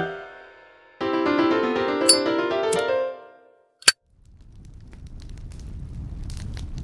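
Keyboard music with a piano sound: one passage fades away, then a new run of notes plays for about two seconds and stops. A single sharp click follows, and then a low rumble with faint crackles slowly swells up.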